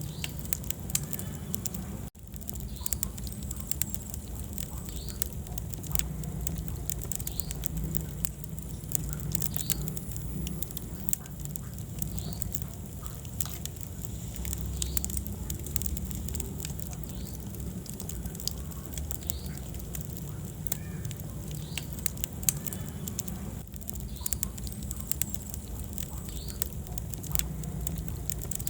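Wood fire in a fireplace crackling, with frequent sharp pops and snaps over a low rumble of flames and short faint whistles now and then. The sound drops out for an instant about two seconds in.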